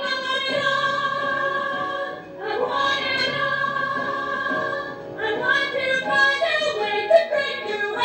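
Women's voices singing a musical-theatre song together, holding a long note, then a second long note, then moving into quicker phrases about five seconds in.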